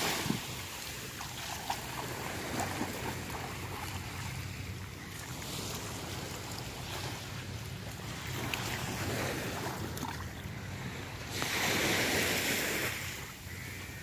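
Small waves washing in and out on a sandy beach, with wind rumbling on the microphone. The wash of surf swells louder for a couple of seconds near the end.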